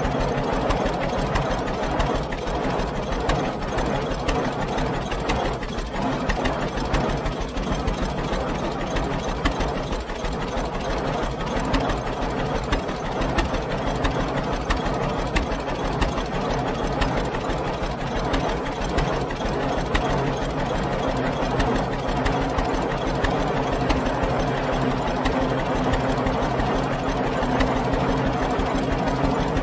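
1922 International 10-20 Titan tractor's two-cylinder engine running steadily under load as it traverses a hill, a fast, even beat of exhaust knocks.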